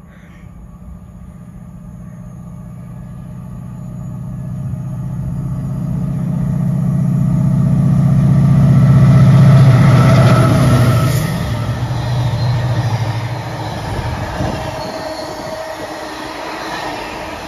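An intermodal container freight train approaches and runs through the station. The locomotive's low hum grows steadily to its loudest as it passes about ten seconds in, then falls away, leaving the container wagons rumbling and clattering by.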